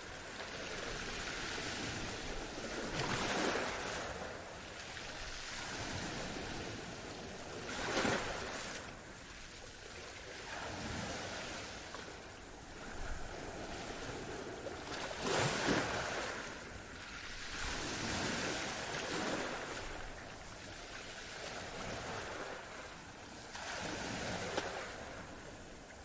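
Ocean surf: waves breaking and washing in as a steady hiss that swells and eases every few seconds, with louder breaks about 3, 8 and 15 seconds in.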